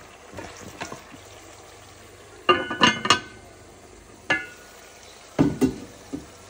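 Pot lids and cookware knocking and clinking together on the stovetop: several sharp metallic knocks, some of them ringing briefly.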